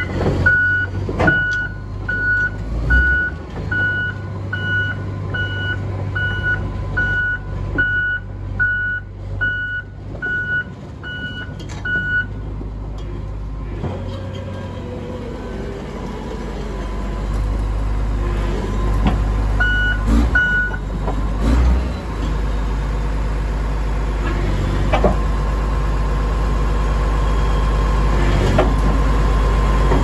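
Komatsu D65PX-15 bulldozer's diesel engine running, with its reverse alarm beeping steadily for about the first twelve seconds while the machine backs up, then two more beeps about twenty seconds in. The engine rumble grows louder in the second half, with a few clanks.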